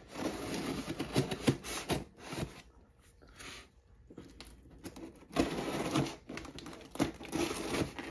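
A folding knife cutting the packing tape along the edges of a cardboard shipping box: scraping and crackling of tape and cardboard with small clicks, in two stretches with a short quiet pause in the middle.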